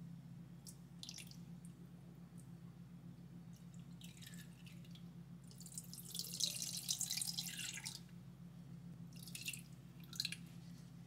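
Milk pouring in a thin stream into a glass bowl over a whole raw chicken. The main pour runs for about two seconds, some six seconds in, with a note that rises as the bowl fills. Shorter splashes and drips come before and after it.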